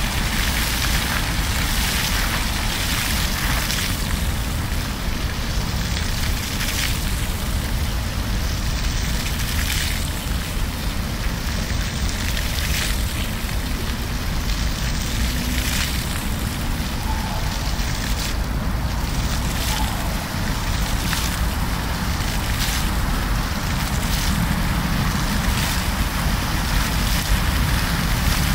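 Fountain jets splashing into the basin and water spilling over its rim: a steady rushing of water.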